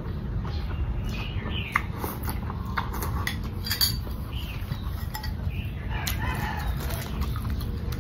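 Chickens calling in the background: several short, pitch-bending clucks and crow-like calls. Under them runs a steady low hum, and there are a couple of sharp clicks of a spoon against a glass bowl.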